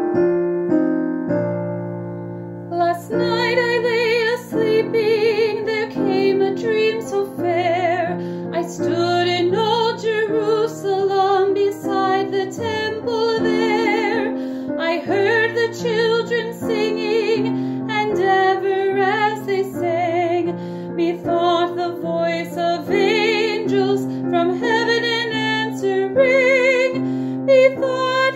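Music: keyboard chords, joined about three seconds in by a solo voice singing a melody with vibrato.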